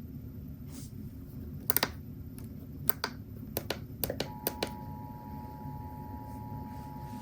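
Steady low radio hiss, broken about two seconds in by a scatter of sharp clicks. About four seconds in, the faint, steady two-tone Emergency Alert System attention signal starts and holds, announcing the next alert.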